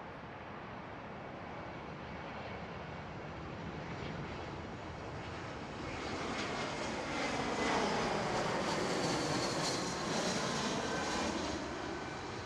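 Airbus A320 twin jet engines at approach power as the airliner passes low overhead on final approach: a rushing jet noise that builds, peaks about eight to ten seconds in, then eases off near the end, with a faint whining tone gliding slightly down in pitch as it goes by.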